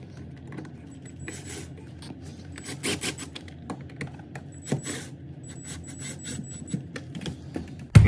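Cordless impact driver run in a few short bursts, driving an electrical outlet's mounting screws into the wall box, amid clicks and scraping of metal screws and the outlet's strap.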